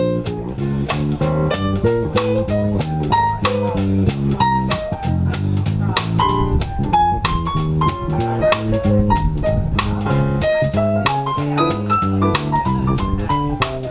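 A live instrumental trio of drum kit, electric bass guitar and Yamaha electric keyboard playing together, with a steady beat and a line of single notes moving above the bass.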